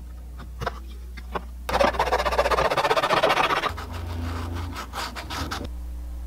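Hard plastic gauge-cluster bezel being scraped and shaved by hand with a utility knife blade. Dense rapid scraping starts about a second and a half in and lasts about two seconds, then gives way to softer rubbing with a few clicks as it is sanded with folded abrasive paper. The rubbing stops about half a second before the end. The bezel ring is being thinned where it presses on the gauge face.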